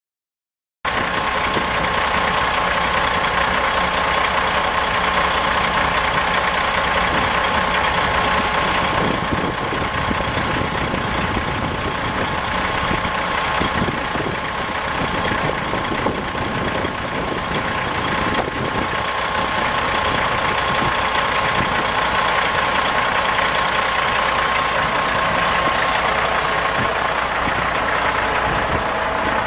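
Diesel engine of a 2004 Kenworth T800B Super 18 dump truck idling steadily, with a thin high whine over the engine note.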